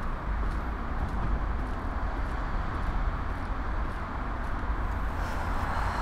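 Steady outdoor ambience of distant traffic at night: an even hiss with a low rumble beneath.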